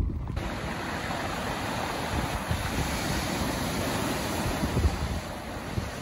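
Ocean surf breaking on a rocky coast, a steady wash of noise that sets in abruptly a moment in, with wind buffeting the microphone.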